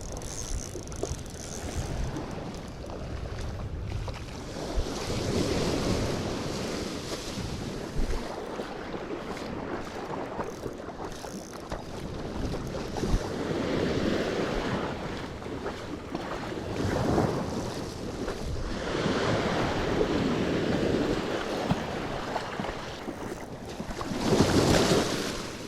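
Small surf washing up the beach in swells every few seconds, with wind buffeting the microphone; the loudest wash comes near the end.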